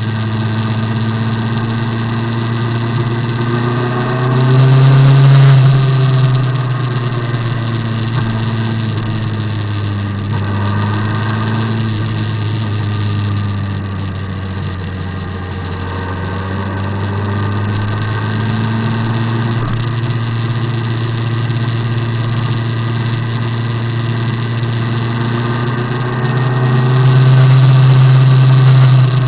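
Motorcycle engine running steadily while riding along a road, a constant drone. It swells louder twice, about five seconds in and again near the end.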